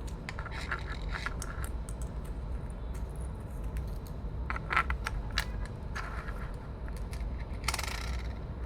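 Handling of a small 3D-printed plastic keychain and its fittings: light clicks, taps and scrapes in short bursts, with a longer rustle near the end, over a steady low hum.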